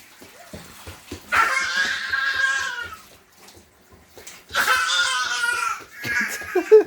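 A young child making strange, drawn-out vocal noises twice, each lasting about a second and a half, with a shorter voiced sound near the end.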